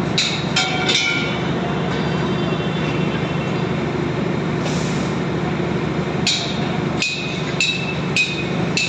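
Metal striking steel in sharp ringing clanks, three in quick succession at the start, then five at a steady beat about every 0.6 s from about six seconds in, over a steady low machine hum.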